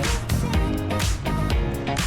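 Background music with a steady beat: drum hits about twice a second over sustained bass and pitched notes.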